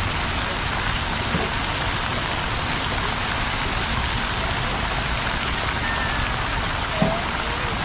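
Falling and splashing water of a plaza fountain: a steady rushing hiss, with one brief faint knock about seven seconds in.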